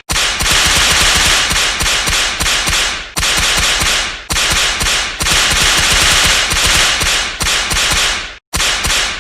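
Whip-crack sound effects fired in rapid succession and stacked on top of each other, making a dense, loud, almost continuous crackling barrage like machine-gun fire, broken by short drops about three, four and eight and a half seconds in.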